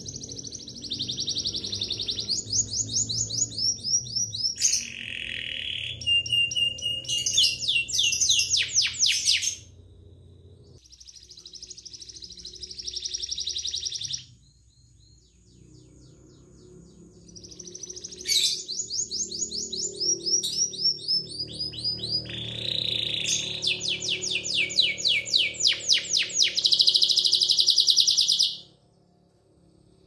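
Domestic canary singing long phrases of fast rolling trills and high repeated notes, with two breaks in the song, stopping abruptly near the end.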